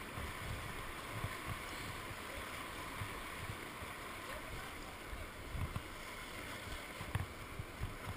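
Whitewater rushing steadily around a kayak running the rapids of an artificial whitewater course, with irregular low thumps throughout and a few sharp clicks near the end.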